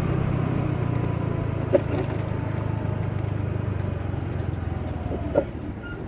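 Steady engine and road hum of a vehicle driving along, heard from inside the cabin, with two short knocks, one a little under two seconds in and one near the end.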